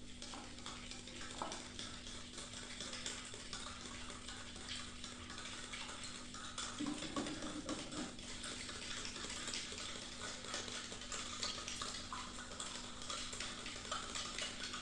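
A metal fork stirring sugar into water in a plastic cup: a quick, continuous run of light taps and scrapes against the cup.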